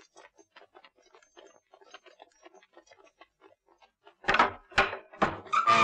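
Soft, quick, irregular tapping, then about four loud, deep thuds roughly half a second apart near the end, leading into dramatic music.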